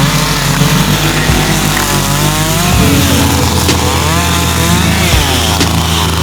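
Gasoline chainsaw running loudly, its engine pitch stepping up and down several times as the throttle is worked.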